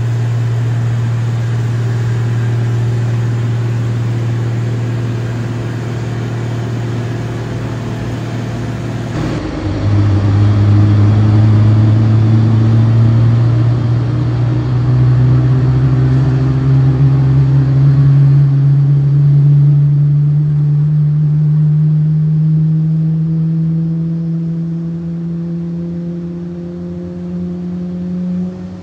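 A steady low hum, then from about nine seconds in a Boeing 777's GE90 turbofan spooling up during engine start: a loud low whine that rises slowly and steadily in pitch.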